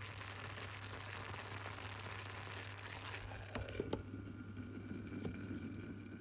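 A big pot of food boiling and sizzling: a steady bubbling hiss over a low hum. About three and a half seconds in there are a few sharp knocks, after which the hiss falls away to a lower bubbling.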